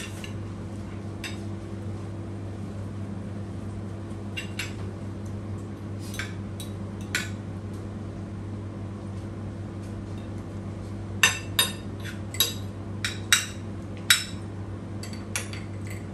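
Metal spoon and fork clinking and scraping on a plate while food is scooped up: a few scattered clinks in the first half, then a quick run of sharper clinks over the last five seconds. A steady low hum sits underneath throughout.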